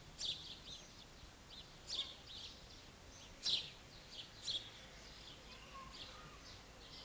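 Small birds chirping: short high calls repeated every second or so over a faint steady hiss.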